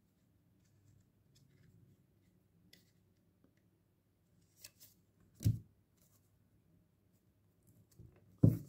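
Tarot cards being handled in a final shuffle and draw: faint scattered clicks and rustles, then a few short brushing sounds about four and a half seconds in, the loudest just after five seconds, and another just before the end.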